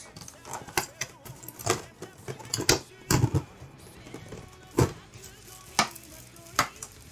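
Hard plastic figure parts and packaging being handled and set down: a string of separate clicks and knocks, about seven over a few seconds.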